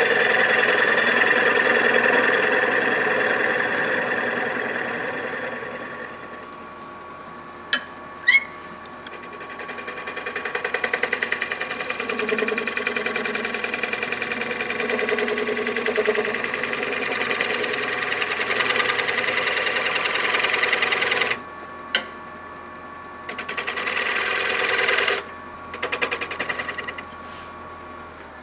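A woodworking power tool cutting or sanding wood: a fast, even rattle over a steady motor hum. It eases off about six seconds in, builds again, and cuts out twice near the end.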